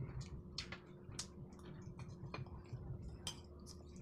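Metal spoon clinking and scraping against a soup bowl while eating, a series of light, irregular clicks several times a second.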